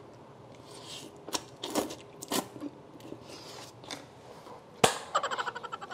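Instant ramen noodles slurped off chopsticks in a few short bursts, then a sharp knock a little before the end followed by a fast run of pulses.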